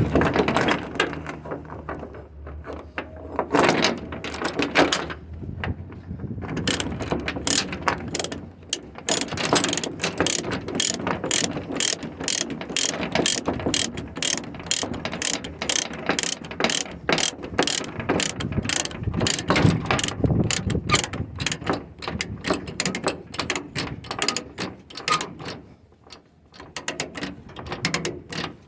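Ratchet chain binder being cranked to tighten a securement chain on a flatbed load, giving runs of quick ratcheting clicks, several a second, broken by short pauses.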